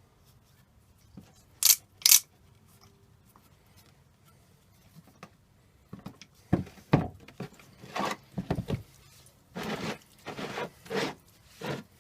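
The end of a club hammer handle tapping on the stuck bottom shaft of a Lewmar 34 winch to drive it out: two sharp knocks about two seconds in, then a run of irregular knocks and scrapes from about halfway. The shaft is seized in its plastic insert by old grease and does not budge.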